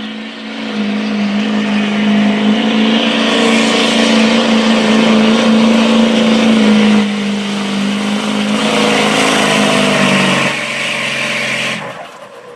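Chevrolet Silverado diesel pickup engine running at high, steady revs under heavy load while pulling a sled on dirt, with a loud rushing exhaust. Near the end the driver lets off and the sound falls away sharply.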